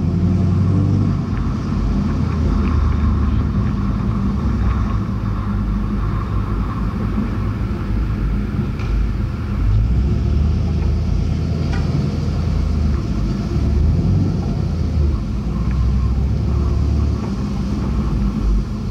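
A 2014 Camaro SS's 6.2-litre L99 V8, breathing through long-tube headers, high-flow cats, an X-pipe and an axle-back exhaust, running at low revs with a deep, steady exhaust note as the car creeps along at low speed.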